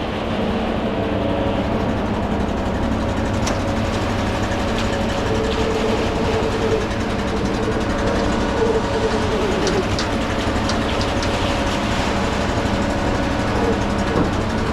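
Ready-mix concrete truck's diesel engine running steadily at the pour, with scattered light clicks and knocks over the drone.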